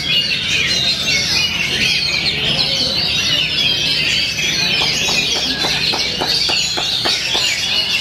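Many caged songbirds, the oriental magpie-robin among them, singing at once: a dense, unbroken mix of overlapping whistles and chatter. A run of quick sharp ticks, about five a second, comes in about halfway through.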